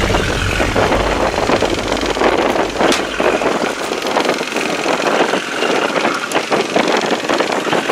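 A small fishing boat's motor running low under choppy wind noise and water splashing. A deep rumble fades out about three seconds in.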